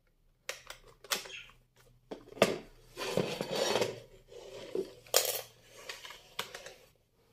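Tefal glass bathroom scale being handled: its plastic battery cover clicked shut, then the scale turned over and set down on a tiled floor. The result is a string of sharp plastic and glass clicks and knocks, with a longer scrape about three seconds in.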